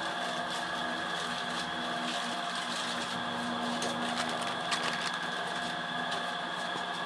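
Steady mechanical hum made of several fixed tones, with a few brief crinkles of plastic packets being handled a few seconds in.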